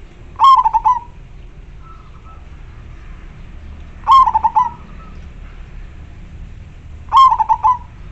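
Zebra dove (perkutut) cooing three times, about three seconds apart. Each call is a quick run of notes lasting about half a second.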